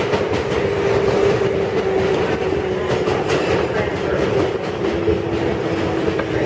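Interior of a Kawasaki R142A subway car running on the track: a steady rumble with wheel clicks over the rail joints, and a motor hum that slowly sinks in pitch.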